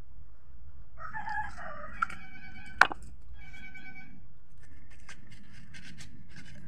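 A rooster crowing about a second in: a pitched call of roughly a second, with a second, steadier phrase shortly after. A single sharp click falls between the two phrases and is the loudest sound, and a few lighter clicks come later.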